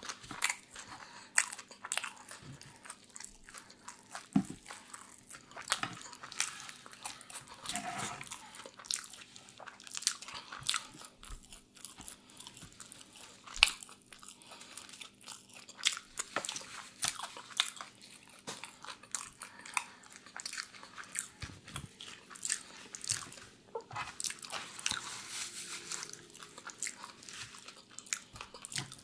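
Close-miked chewing of food, with many sharp, irregular crackly clicks and wet mouth sounds.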